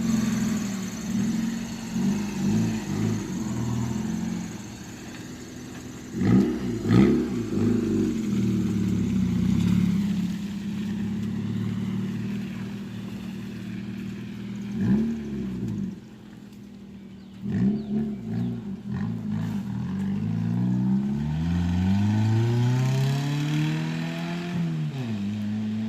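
Car engine idling with a few short revs, then revving up in a long, steady rise near the end.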